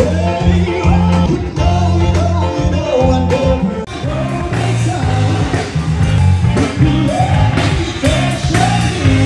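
A live band playing rock music: a singer over electric guitar, bass and drums.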